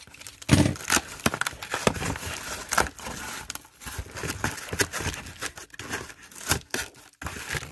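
Box cutter slitting the packing tape and cardboard of a taped box, then the cut cardboard being pulled apart, with irregular crackling, scraping and tearing.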